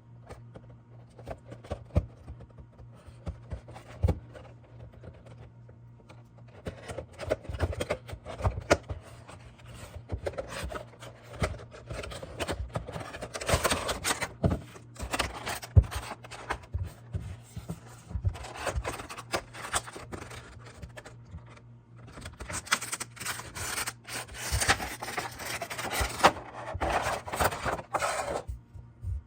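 Toy packaging being handled and opened by hand: rubbing, scraping and rustling with many sharp taps and clicks, the rustling busiest from about a quarter of the way in and again in the last quarter, over a faint steady low hum.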